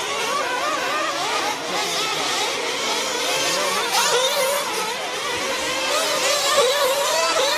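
Several 1/8-scale radio-controlled truggies racing, their small engines whining together. The pitch keeps rising and falling as the trucks accelerate and slow through the track.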